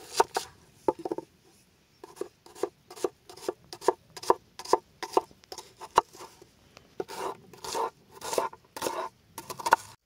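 Knife cutting through a red onion on a wooden board: a crisp crunch at each stroke, about two or three cuts a second, with longer scraping cuts in the last few seconds.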